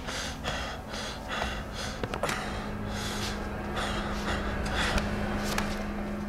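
A young man's heavy, agitated breathing in short quick gasps, with a low steady tone swelling in under it from about two seconds in.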